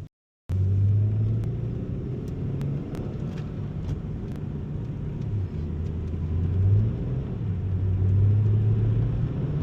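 The 2005 Hyundai Tiburon's 2.7-litre V6 engine and drivetrain heard from inside the car while driving, a steady low drone that shifts slightly in pitch. It starts about half a second in. The car is being driven to test a slipping clutch, which the driver judges no better after readjusting the pedal.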